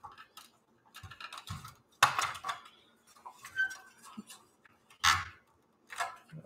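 Pioneer dual cassette deck being handled and pulled apart: irregular clicks, knocks and rattles of its plastic front panel and metal chassis, with louder knocks about two seconds in and again about five seconds in.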